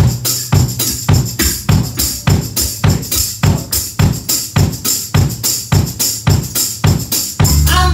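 Drum kit playing a steady beat, with a small tambourine jingling on the beat and bass notes underneath. The rest of the band comes in with fuller sustained chords near the end.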